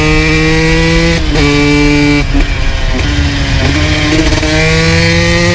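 2002 Honda CR125 two-stroke single with a full FMF exhaust pulling hard: the engine note climbs, cuts off briefly and drops in pitch at each upshift, about a second in, after two seconds and again at the end.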